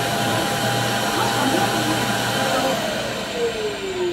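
Vacuum cleaner running steadily, then switched off about three seconds in, its motor whine falling in pitch as it spins down.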